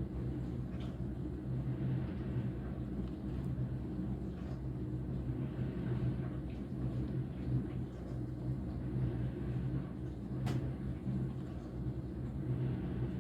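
A steady low mechanical hum, with a single sharp click about ten and a half seconds in.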